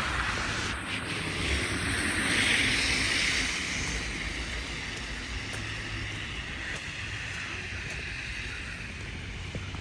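Tyre hiss of a car passing on a wet, snowy street, swelling about two seconds in and fading away, leaving a steady outdoor hiss.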